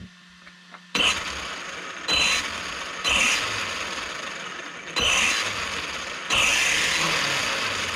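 Traxxas Sledge 1/8 RC truck's brushless motor and gear drivetrain spun up in about five short throttle bursts. Each starts abruptly with a gear whir and runs down over a second or so.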